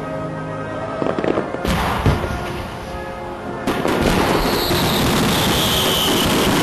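Fireworks going off: a few sharp bangs, then from about halfway a loud, dense stretch of crackling, over background music.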